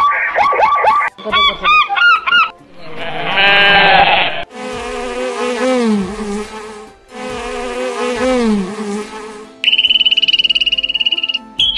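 A sequence of different animal sounds. Short repeated calls come first, then the long buzzing of a crowd of honeybees in two stretches of a few seconds each, broken briefly in the middle. A fast, high-pitched trill follows near the end.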